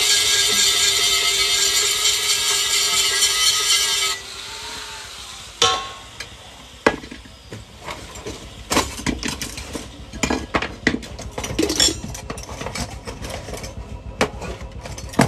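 Angle grinder grinding the underside of a metal frying pan, a loud, steady, high grinding noise that cuts off about four seconds in and spins down. After it come scattered metal clinks and knocks as pans and tools are handled on the bench.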